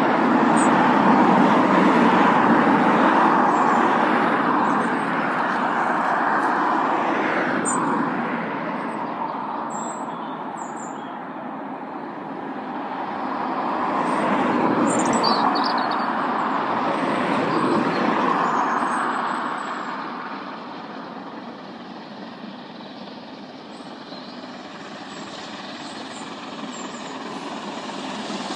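Steady rushing vehicle noise, loudest at the start and again about halfway through, then fading, with a few faint high chirps over it.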